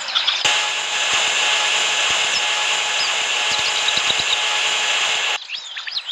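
A steady, hissing mechanical whir, like a small power tool or motor, starts abruptly about half a second in and cuts off near the end. Birds chirp faintly through it.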